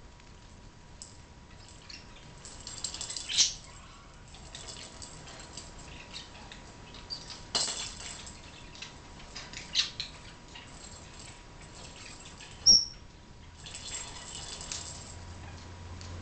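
A budgie pecking and pushing a plastic lattice ball across a wooden floor: scattered light clicks and rattles, with several sharp knocks, the loudest about three-quarters of the way through.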